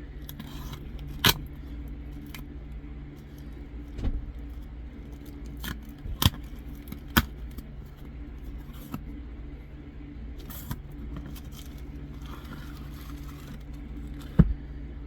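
A shipping box of comics being handled and opened by hand: scattered sharp clicks and knocks with faint rustling, the loudest knock near the end, over a steady low hum.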